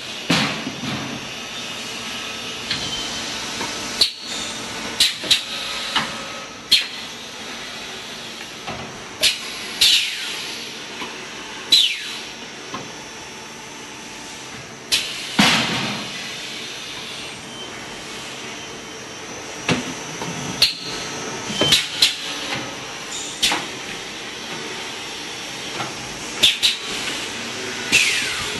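Two-station extrusion blow molding machine running its cycle: sharp clacks of the pneumatic mold clamps and cylinders every few seconds, with short blasts of compressed air hissing, over a steady machine hiss and hum.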